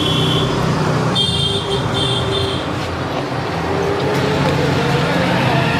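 Street traffic: vehicle engines running steadily, with a high-pitched horn beeping once at the start and then four quick times between about one and two and a half seconds in.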